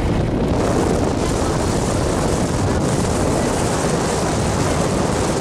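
Steady wind rushing over the microphone of a moving vehicle, over a low rumble of the vehicle running on the road.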